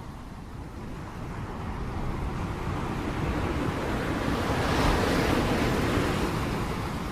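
Rushing noise of heavy rain with wind, swelling to a peak about five seconds in and then easing.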